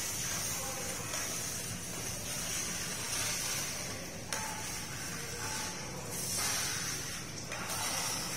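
Metal scraper spreading cement slurry across ceramic floor tiles: a series of hissing scrapes, each a second or two long, worked over the drilled holes to fill the hollow spots beneath the tiles. There is a sharp tap about four seconds in.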